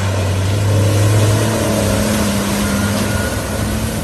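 Tractor engine running with a low, steady drone; a higher tone joins about a second and a half in.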